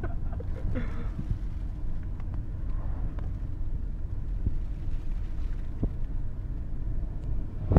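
Steady low rumble of road and engine noise inside a moving taxi's cabin.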